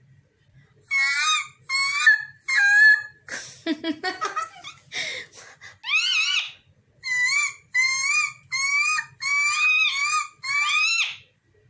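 Pet parrot calling in a run of short, loud squawks, about ten in all, each bending up and down in pitch, with a jumble of rougher chattering noises in the middle.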